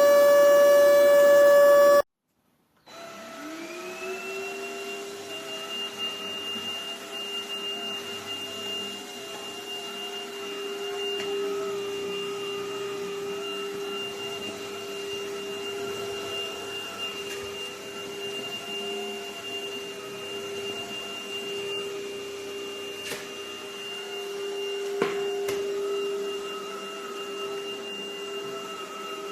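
Stanew 4-in-1 cordless stick vacuum's motor running with a loud steady whine, then cutting off. After a brief silence a vacuum motor spins up with a rising whine and runs steadily, with two light clicks near the end.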